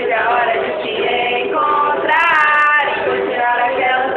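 A woman singing a melody while playing an acoustic guitar.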